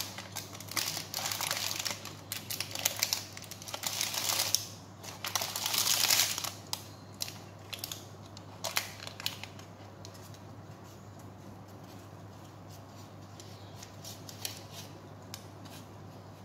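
Baking parchment crinkling and rustling as it is worked loose from around a quiche in a ceramic dish. The paper noise is loudest in the first several seconds, then gives way to quieter handling with a few light scrapes and clicks of a spatula.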